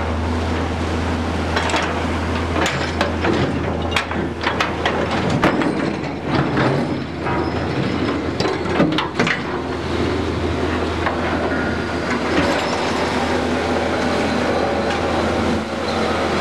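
Trawler deck noise while the trawl gear is worked: a steady low machinery drone with irregular clanks and rattles of metal gear and chain, thickest in the first ten seconds.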